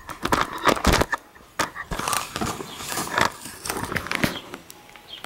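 A few knocks and clicks in the first second, then strong wind gusting through a tree's leaves: a rushing rustle that swells and fades.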